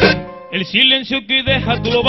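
Vallenato band music led by accordion: the band cuts out briefly at the start, then the accordion comes back in with a melodic run and the bass rejoins about a second and a half in.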